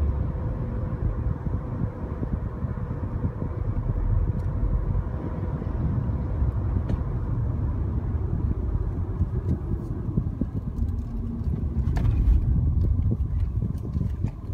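A car being driven: a steady, low rumble of engine and road noise.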